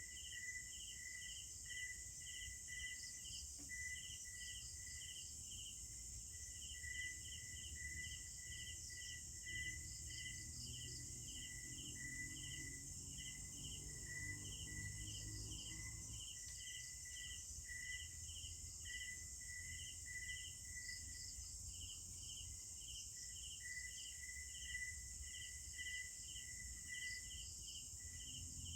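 Night-time insect chorus: a steady high-pitched trill with a chirping call pulsing a little over twice a second. A faint low rumble swells and fades in the middle.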